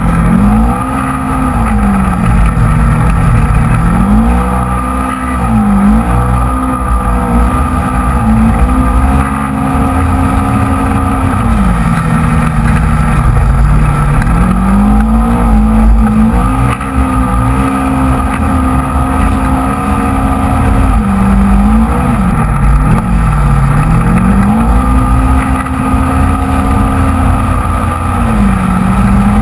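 Polaris RZR XP 900 side-by-side's twin-cylinder engine running hard across sand dunes, its pitch rising and falling again and again as the throttle comes on and off, over a heavy low rumble in the open cab.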